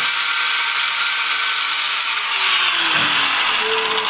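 A power tool running steadily with a high whine and hiss, changing about halfway through, then a tone falling in pitch as it slows.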